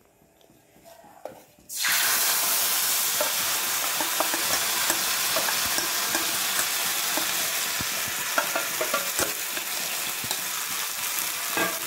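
Wet moong dal paste frying in hot oil in an iron wok: a loud, steady sizzle that starts suddenly about two seconds in, as the water in the paste boils off. A spoon clicks and scrapes as it stirs the paste out of the bowl into the oil.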